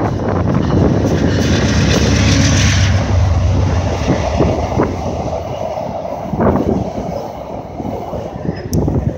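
VIA Rail passenger train, led by a GE P42DC diesel locomotive, passing close by. The locomotive's engine drone and rushing noise are loudest over the first few seconds, then the coaches roll past with a few wheel clacks over the rail joints. Wind buffets the microphone throughout.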